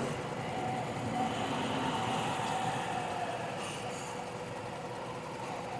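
Nissan Sentra's four-cylinder engine idling steadily, heard from close by under the open hood. The engine has a sporadic misfire fault.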